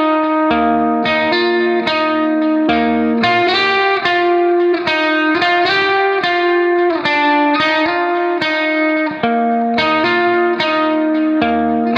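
Instrumental background music led by plucked guitar notes in a steady, even rhythm.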